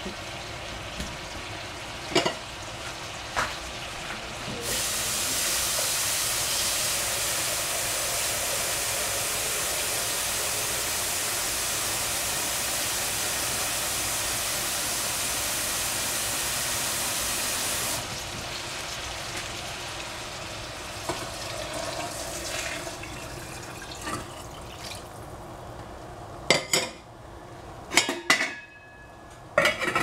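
Water running from a kitchen tap for about thirteen seconds, starting and stopping abruptly, with a few clanks of pots and utensils before and after.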